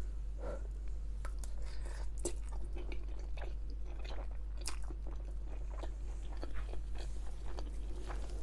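Close-miked chewing of a mouthful of creamy chicken fettuccine Alfredo, with many short, irregular wet mouth clicks and smacks.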